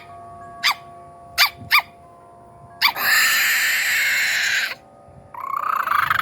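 A person imitating animal noises with her voice: three short, sharp yips, then a long breathy hiss of nearly two seconds, then a rough drawn-out call near the end.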